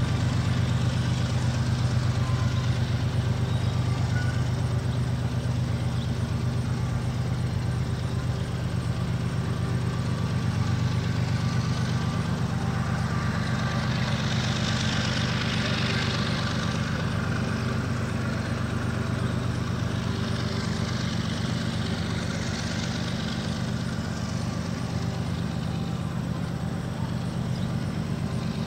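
Diesel freight locomotive's engine running at low throttle with a steady low drone as the train creeps forward. Road cars pass over the level crossing about halfway through and again a few seconds later, each adding a swelling tyre hiss.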